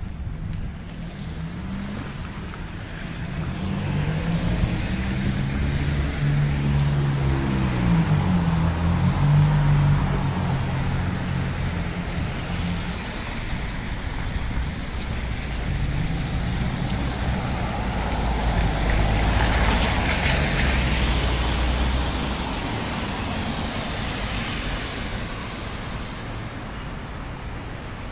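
Street traffic: a vehicle's engine hum rises and falls as it passes about four to ten seconds in. A second vehicle's passing swells to its loudest around twenty seconds in and fades away.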